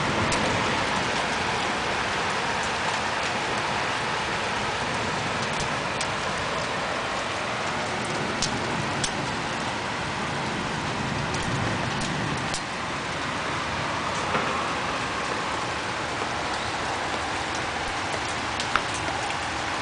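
Hail storm with heavy rain: a steady downpour hiss with scattered sharp ticks of hailstones striking.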